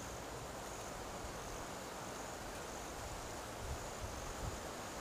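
Insects trilling steadily, a high-pitched unbroken buzz, with two faint low bumps late on.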